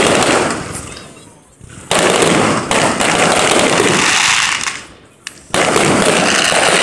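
Aerial fireworks going off in three volleys of rapid bangs and crackle: one at the start that fades out, one starting about two seconds in and lasting a couple of seconds, and one starting past five seconds.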